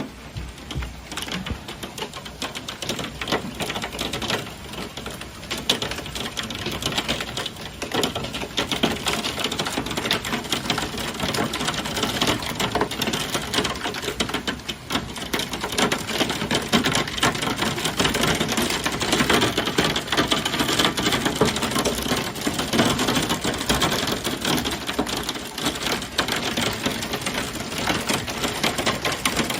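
Hailstones clattering on a hard surface in a dense, rapid patter of sharp strikes, getting somewhat louder partway through.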